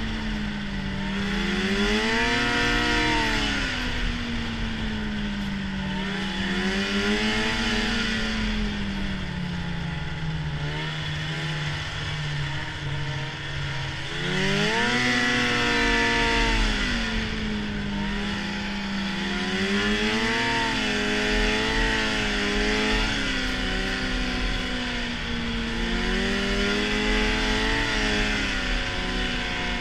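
Arctic Cat snowmobile engine running under way, its pitch rising and falling with the throttle. It eases off to a lower, steadier note for a few seconds, then revs up sharply about halfway through.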